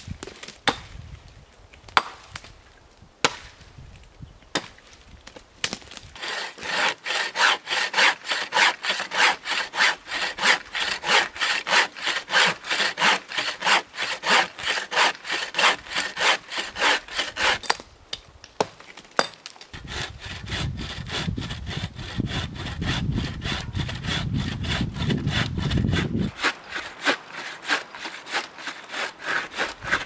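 Wooden frame bow saw cutting through a dry dead branch in steady back-and-forth strokes, about two a second. It follows a few sharp knocks near the start, and a low rumble sits under the strokes for several seconds in the second half.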